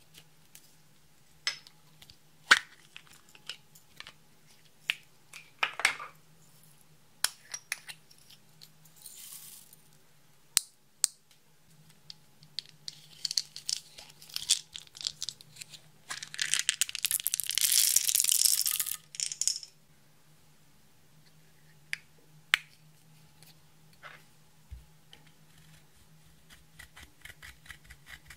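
Slime being worked by hand: scattered sticky clicks and pops, with a dense crackling rustle a little past halfway that lasts about three seconds and is the loudest part.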